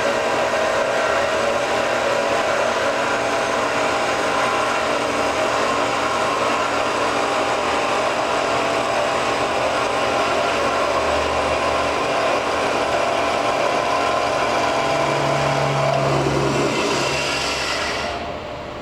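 Baleigh 9-inch semi-automatic horizontal band saw running, its 1-inch blade cutting through stock in the vise with a steady mechanical sound; the sound falls away near the end.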